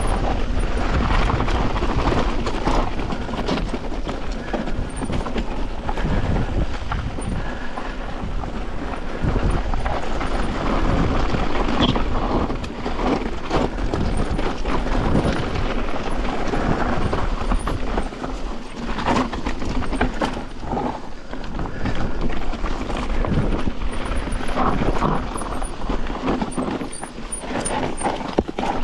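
Enduro mountain bike riding down rocky singletrack: tyres crunching over loose rock and gravel, with the bike rattling and knocking over the bumps all the way.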